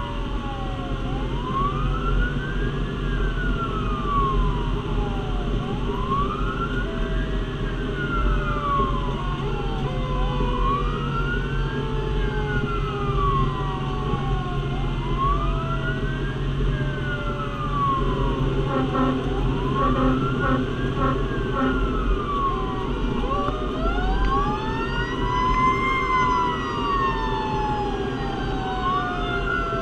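Fire engine siren wailing, its pitch rising and falling about every four seconds, with a second, lower siren tone that slowly falls beneath it. About two-thirds of the way through, a rapid pulsing tone cuts in briefly, and near the end a louder tone sweeps high and slowly falls away. A steady low engine rumble runs underneath.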